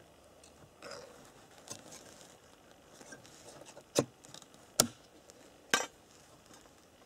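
Metal lid of a tin can being bent back and pulled free with faint scraping, then three sharp metallic clicks a little under a second apart.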